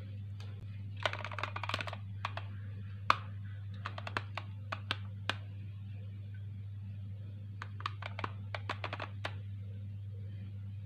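Light clicks and taps in short clusters while egg yolk is dabbed into the hollowed centres of unbaked cookies on a baking tray, over a steady low hum.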